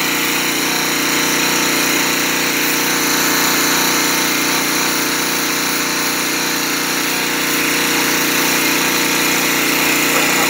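Gas-engine Craftsman pressure washer running steadily, its small pull-start engine droning under the hiss of the high-pressure water jet spraying onto a steel snowplow blade.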